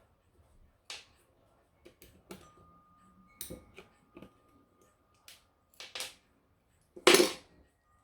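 Metal clock-movement parts and small tools being handled on a workbench: scattered clinks and knocks. One of them leaves a thin ringing tone for about three seconds, and a louder clatter comes near the end.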